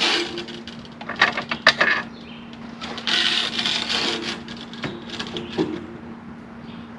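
Sharp metal clanks from a welded roller hitch being coupled, clustered about a second in, with bursts of scraping noise and a steady low hum.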